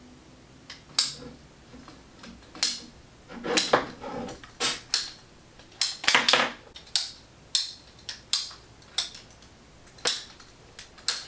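PVC pipe cutter chopping through 3/4-inch PVC pipe: a run of sharp clicks and snaps at uneven spacing, well over a dozen, as the handles are squeezed and the blade cuts off short sections.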